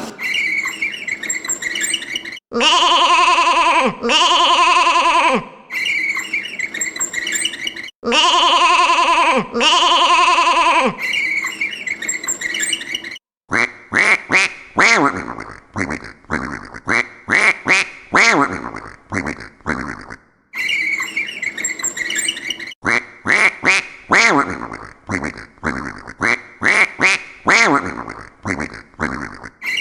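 Recorded farm animal sounds: first two pairs of long drawn-out animal calls, then, from about halfway, two long runs of rapid, repeated duck quacking.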